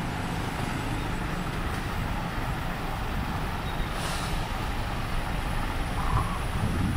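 Street traffic: a steady rumble of road vehicles running and passing.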